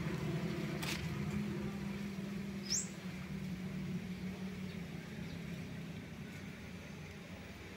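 Steady low mechanical hum that slowly fades, with one short, high, rising chirp near the three-second mark.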